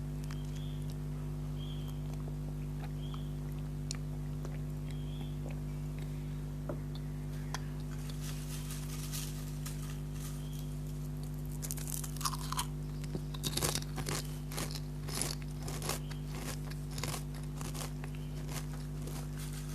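Lay's potato chips being bitten and chewed with loud crunches, starting about eight seconds in and densest about two-thirds of the way through, over a steady low hum.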